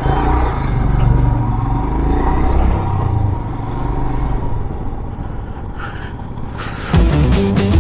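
Motorcycle running with a steady low rumble, stronger at first and easing off a few seconds in.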